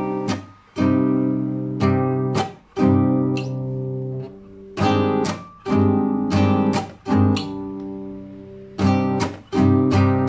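Acoustic guitar strumming chords in an improvised, unaccompanied passage. Some chords are left to ring for a second or two, others are cut short, with brief pauses between them.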